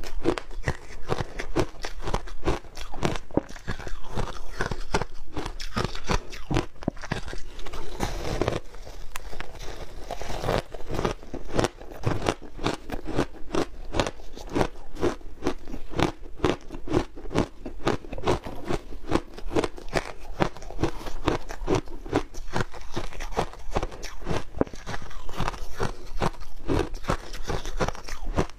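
Shaved ice coated in matcha and milk powder being bitten and chewed close to a clip-on microphone: a dense, unbroken run of rapid, crisp crunches.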